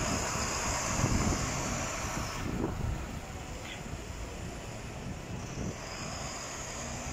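City street traffic: buses and cars going by, with wind buffeting the microphone.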